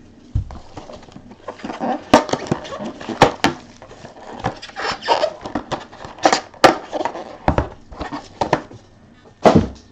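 Trading cards and their packaging being handled: an irregular run of sharp clicks, taps and short rustles.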